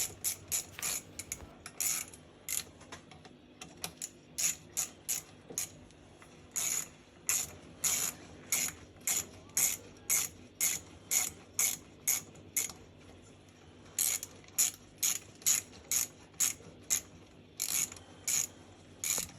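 Ratchet wrench clicking in short, repeated strokes, about one to two a second with a couple of short pauses, as bolts on an outboard motor are tightened.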